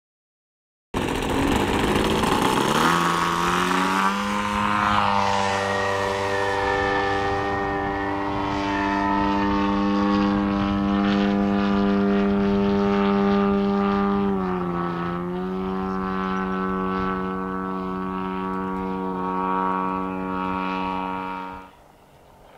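Model tow plane's engine and propeller running at high power during an RC glider aerotow. The pitch climbs over the first few seconds, then holds steady, dips briefly and picks up again about two-thirds of the way through. The sound cuts off suddenly near the end.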